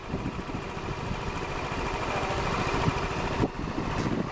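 Small motorbike engine running as the bike rides slowly along, getting a little louder towards the middle, with a brief dip about three and a half seconds in.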